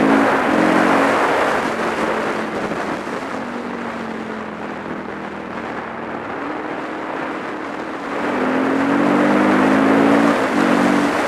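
Supermoto motorcycle engine pulling uphill under load. It revs up with a rising pitch at the start and again from about eight seconds in, each rise broken off briefly as at a gear change, with a quieter, steadier run in between. A rush of wind noise lies under the engine throughout.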